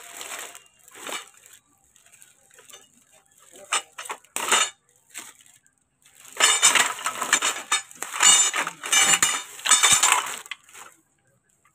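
Clear plastic packaging crinkling and rustling as a baby swing's parts are pulled out of their bags, with hard frame pieces clinking against each other. It comes in short bursts and is loudest and busiest in the second half.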